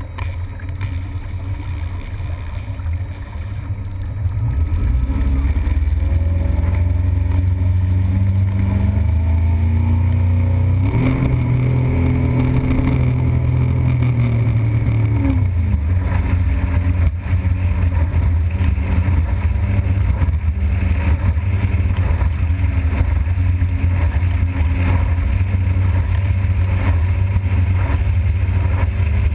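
Motorboat engine under way. It opens up about five seconds in, its note climbing for several seconds as the boat speeds up, then runs steadily at speed.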